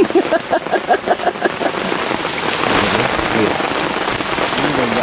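Heavy rain falling steadily. In the first second and a half, a rapid series of short pitched pulses, about six a second, sounds over the rain.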